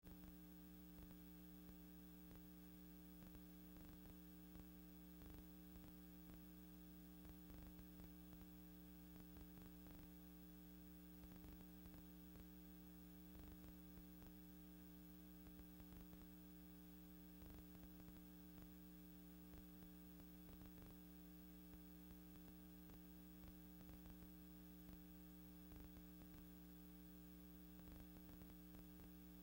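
Near silence: a faint steady electrical hum with light static ticks, and no aircraft sound.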